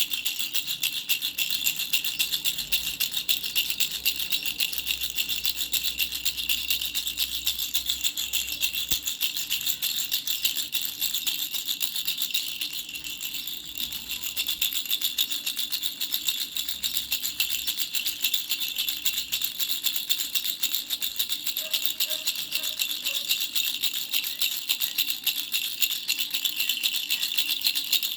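Baby rattle with three small bells shaken rapidly and continuously, giving a dense, high jingling. It eases briefly about halfway through.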